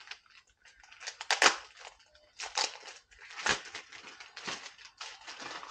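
Irregular crinkling and rustling as protective gloves are handled and pulled on.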